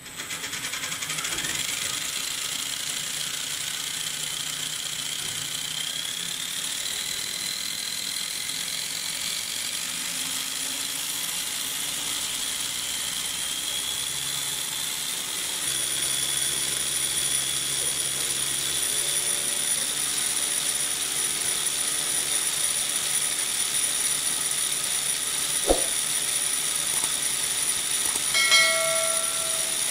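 Electric motor driving a homemade RC helicopter main rotor gearbox and spinning the rotor head: a steady mechanical whine with gear noise, its pitch rising over the first several seconds as it spins up and growing a little louder about halfway through.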